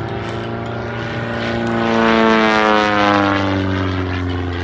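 Propeller airplane flying past with its engine droning. It is loudest about two seconds in, and the pitch falls steadily as it passes and moves away.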